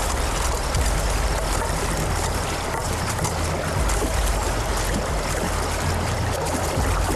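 River water rushing steadily, with a deep rumble underneath.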